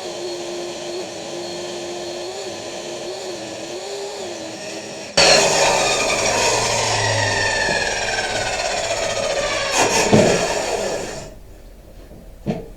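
Power saw ripping pallet wood with a new blade that is struggling to cut. It runs steadily, then turns abruptly louder about five seconds in with its pitch sliding down, and stops about eleven seconds in. A single knock follows near the end.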